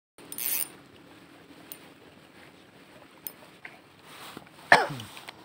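Spinning reel and rod being handled: a short rasp near the start, faint clicks, then about three-quarters of the way in one loud sudden sound that falls steeply in pitch.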